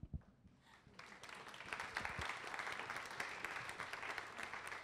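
Audience applauding, the clapping swelling in about a second in and keeping up steadily.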